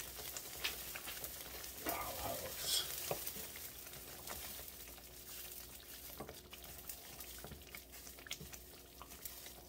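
Tomato sauce faintly sizzling and bubbling in a skillet still hot from the burner, with scattered small clicks and taps.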